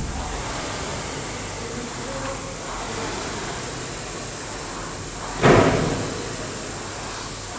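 Concept2 air rowing machine being rowed hard: its fan flywheel whooshes, swelling and fading with each stroke. A single heavy thump comes about two-thirds of the way in.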